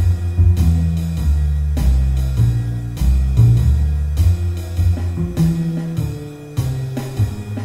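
Jazz play-along backing track of walking bass and drum kit in a medium swing, about 100 beats a minute, the bass moving one note per beat under steady drum-kit time.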